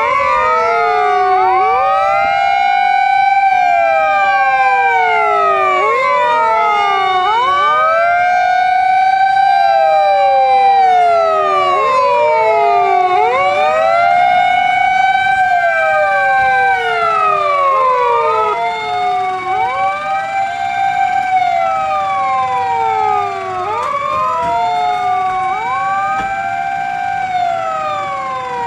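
Several fire engine sirens wailing at once, out of step with each other. Each rises, holds, then falls away in a slow cycle of about six seconds. The sirens grow a little fainter in the second half.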